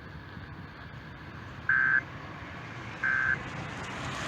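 Emergency Alert System SAME digital data bursts: two short, identical, shrill warbling tone bursts about a second and a half apart over a faint broadcast hiss. They are the end-of-message code that closes the just-finished warning.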